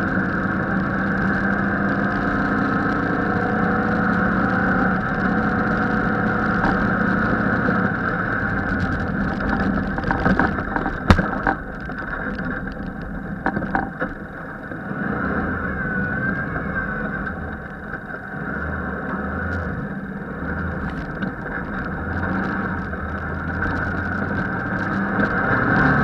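Off-road race vehicle's engine running hard at speed on a dirt road, with wind and road noise throughout. A few sharp knocks come around the middle, and after them the engine note is lower and more uneven.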